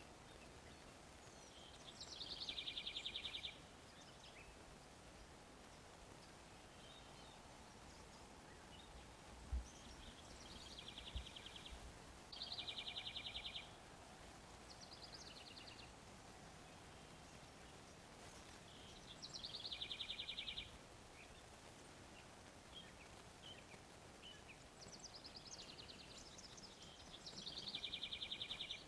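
A bird's rapid trilled calls, each about a second long, repeated about seven times at irregular intervals, some fainter than others. Two short knocks come about ten and eleven seconds in.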